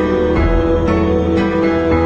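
Background music: an instrumental passage of a song with held notes and a steady beat of about two strokes a second, no singing.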